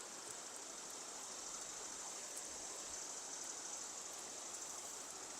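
Steady, faint rush of flowing river water.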